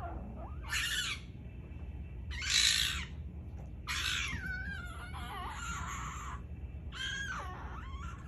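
An animal calling in about five short, harsh squawk- or yowl-like cries, with a hiss-like noisy stretch in the middle.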